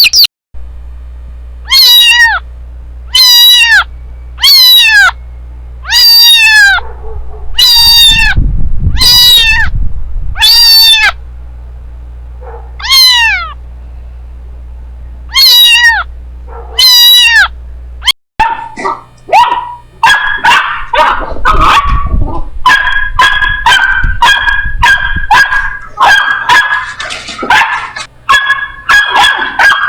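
A kitten meowing over and over, about ten separate calls that each fall in pitch. Then, after a sudden cut, puppies yelping and whining in a quick, overlapping stream of short high calls.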